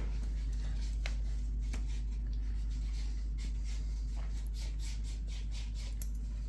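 A serving spoon tapping and scraping lightly against dishes in a few scattered clicks, over a steady low hum.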